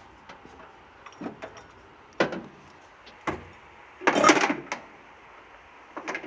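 A series of irregular knocks and clunks, about five, the loudest and longest about four seconds in.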